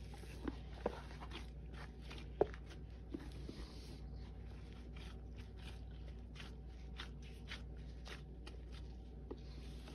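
Gloved hand kneading and pressing thick, crumbly Lime Ajax cleanser paste in a stainless steel bowl: faint squishing and crackling with scattered small clicks, the sharpest about two and a half seconds in. A steady low hum runs underneath.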